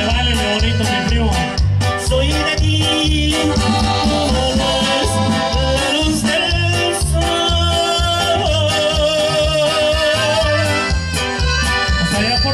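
Live norteño band with accordion and saxophone playing a melody over a steady bass beat, amplified through the stage sound system.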